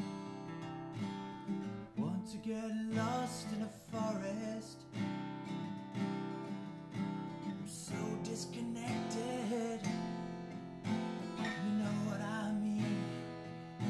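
Acoustic guitar strummed in a steady rhythm, with a man's voice singing over it at times.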